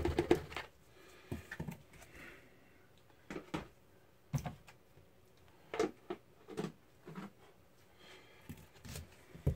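A plastic bowl tapped rapidly against the rim of a plastic bucket to shake out plaster of Paris powder, stopping about half a second in. Then scattered light knocks and clatter of plastic containers being handled and set down.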